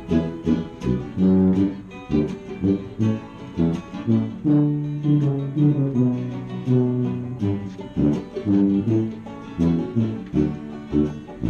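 Live acoustic string band playing an instrumental break: strummed acoustic guitar and a plucked string instrument in a steady rhythm over a tuba bass line, with the tuba holding long low notes midway through.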